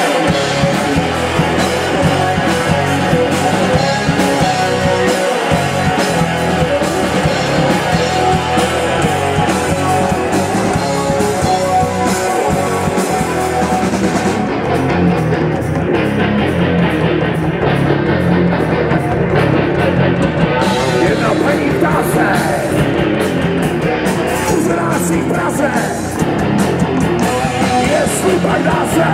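Rock band playing live through a PA: distorted electric guitars over a drum kit. The cymbals drop out for several seconds about halfway through, then come back in.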